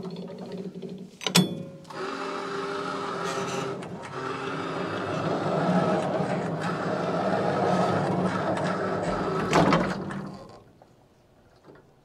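Bandsaw sawmill running and sawing through a pine log: a steady machine hum under a building noise of cutting. There is a sharp knock about a second in and another near the end, after which the sound drops away.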